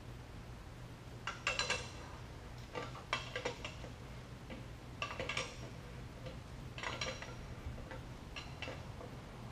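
Hand wrench spinning a tachometer drive housing down its left-hand threads onto an aircraft engine's accessory case: five short bursts of metallic clicking and clinking, one every second and a half or so, as the wrench is worked and repositioned.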